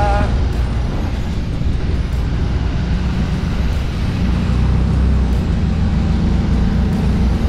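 Steady low rumble of a custom tow truck driving on the road, with engine, tyre and wind noise heard from its open flatbed.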